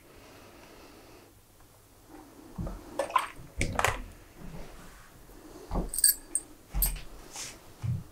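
Fabric being folded and pressed with a steam iron on an ironing board: a faint steady hiss for about the first second, then a run of soft knocks and rustles, with a couple of sharp clicks about six seconds in.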